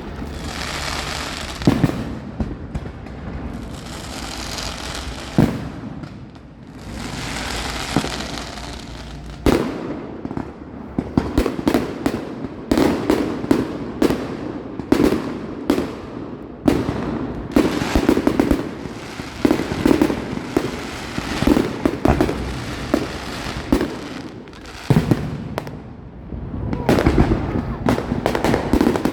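Fireworks display: two spells of hissing crackle in the first ten seconds, then a rapid string of sharp bangs from bursting shells.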